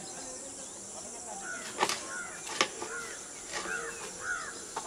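Birds giving short, repeated arched calls that grow busier after about a second and a half, over a steady high-pitched insect drone. Two sharp knocks about two seconds in are the loudest sounds.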